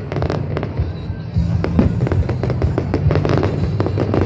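Fireworks display: many rapid cracks and pops from bursting shells and crackling stars, heard over music.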